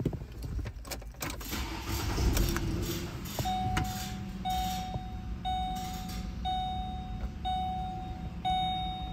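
Keys jangling and clicking as the ignition key of a 2008 Ford Explorer is turned. From about three seconds in, the dashboard warning chime dings about once a second, six times in a row.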